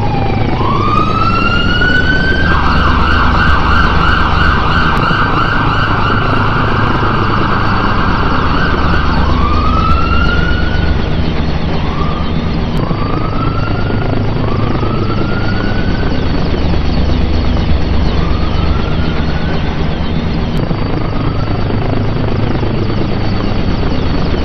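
Emergency vehicle sirens. A rising wail switches to a fast warbling yelp for about seven seconds, then goes back to separate rising wails, over a steady rumble.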